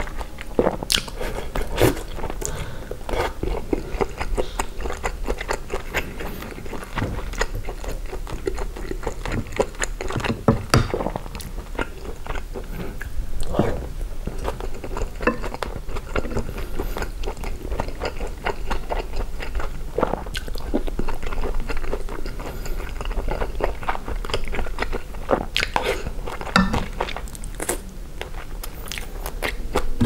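Close-miked eating of chicken gumbo with rice: biting into and chewing the food, with irregular sharp mouth clicks and smacks throughout.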